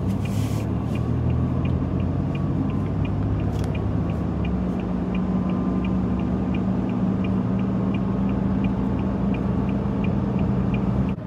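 Car cabin sound while driving: a steady low engine and road hum, with a faint, light ticking about three times a second.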